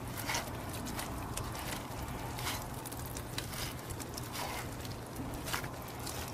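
Metal spoon stirring and scraping hot, sticky pine-resin sludge in a metal strainer: a string of irregular light scrapes and clicks over a steady low hum.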